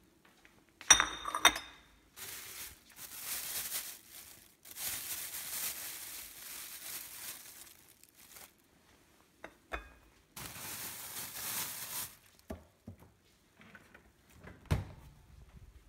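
A ceramic plate is set down on a countertop with a clattering clink, then a clear plastic bag crinkles and rustles in two long stretches as it is handled. A dull thump comes near the end.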